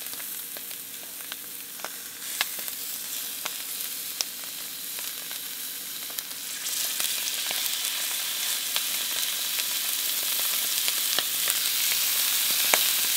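Duck breasts searing fat side down in canola oil in a Lodge cast-iron skillet over medium-high heat: a steady sizzle with scattered pops and crackles. It gets louder about seven seconds in as more breasts go into the pan.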